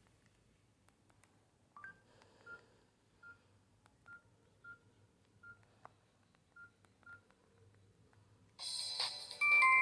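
Samsung GT-E3300L mobile phone's keypad beeps: about nine short, same-pitched beeps at an uneven pace as its keys are pressed. About a second before the end a ringtone melody of bright, chiming notes starts playing loudly through the phone's speaker.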